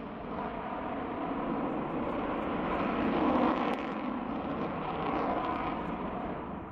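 Su-57 fighter jet flying a display pass, its twin jet engines making a continuous rushing noise that grows loudest about halfway through and then eases slightly.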